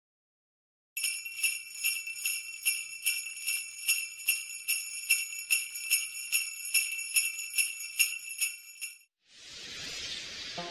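Sleigh bells shaken in a steady rhythm for about eight seconds, each shake a bright metallic jingle. They stop near the end, and a swelling whoosh rises in their place.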